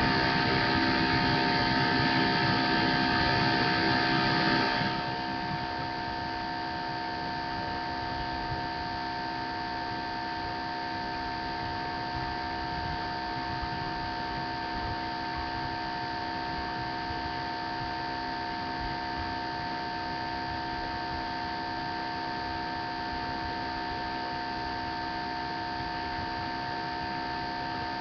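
Steady electrical hum and hiss with several fixed tones, typical of a webcam microphone's own noise. It steps down in level about five seconds in, then holds steady.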